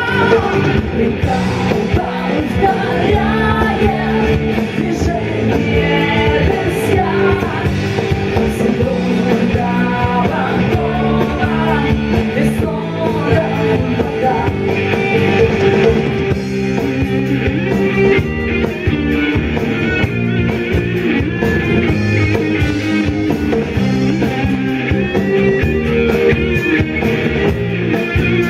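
A rock song with singing, playing continuously at a steady level.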